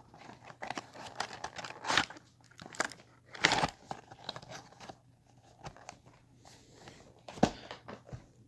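Toy packaging being crinkled and torn open by hand: irregular crackling with a few louder rips.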